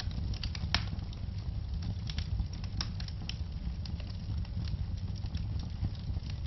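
Wood logs burning in a fireplace, crackling and popping in irregular sharp snaps over a steady low rumble of the flames.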